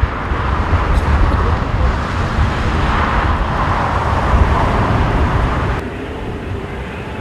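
Jet engines of an Airbus A380 with Rolls-Royce Trent 900 turbofans running at high power for the take-off roll: a loud, steady jet noise over a deep rumble. It swells about three to four seconds in and drops suddenly about six seconds in.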